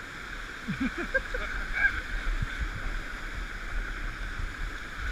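Steady rush of river water, with a few faint short calls about a second in.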